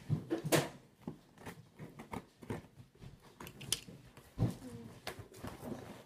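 Scissors cutting through packing tape on a cardboard shipping box, with crackling and scraping, then the box being handled and tipped open, with a single thump about four and a half seconds in.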